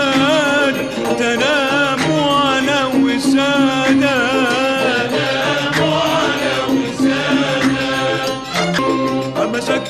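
Background music: a sung melody with wavering, ornamented notes over steady held low notes.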